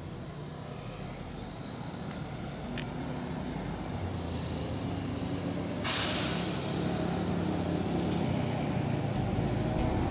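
Large diesel bus engine running and growing louder, with a sudden sharp hiss of air brakes being released about six seconds in that fades over about a second.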